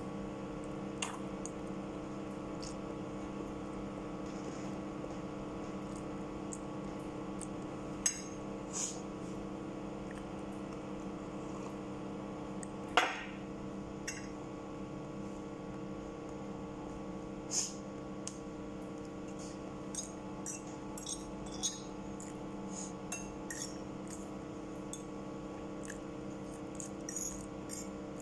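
Metal fork clinking and scraping against a ceramic plate now and then while noodles are eaten, scattered single clicks with one sharper clink about halfway through, over a steady electrical hum.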